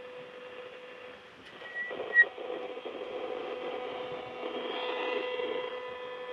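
Speaker of a tunable DIY bat detector (FRANZIS kit) giving out a steady whistling tone over hiss as it is scanned, with a short high chirp and click about two seconds in. Whether it is picking up anything is unclear: the user thinks the sounds could be insects.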